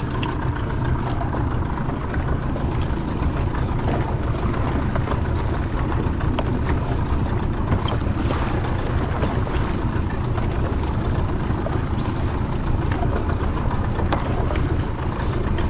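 Steady wind rumble on the microphone and water washing against a small fishing boat at sea, with a few faint knocks.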